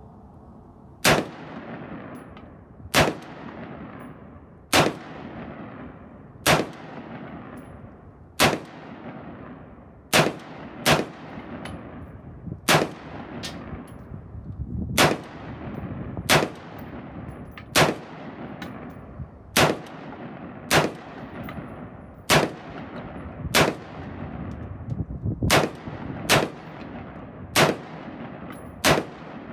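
LWRC Individual Carbine direct-impingement rifle firing single aimed shots at a steady pace, about twenty in all, roughly one every one to two seconds. Each shot is followed by a long echo that trails off.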